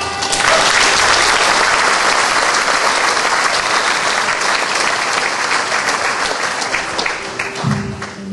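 Audience clapping that breaks out as the last notes of a traditional tune die away, swells within a second, and tails off near the end.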